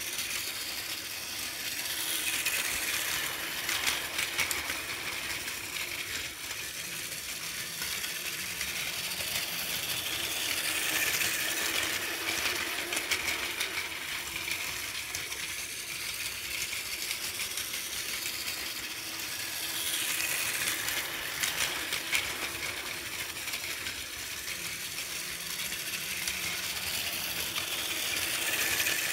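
Plarail battery-powered toy trains, a 400 series Shinkansen and an E4 series Max, running on plastic track: a steady whirring, rattling motor-and-gear noise with clicking wheels. It swells louder several times as a train passes close by.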